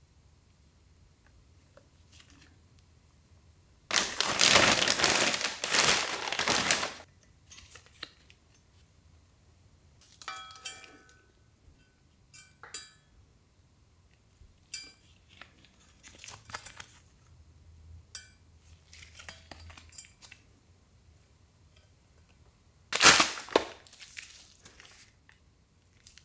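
Plastic bags crinkling and rustling as the parts are pulled out and handled, loudest in a long stretch early on and again briefly near the end. Between these come light knocks and clinks of the metal sway bars and braces being picked up and set down, one with a short ring.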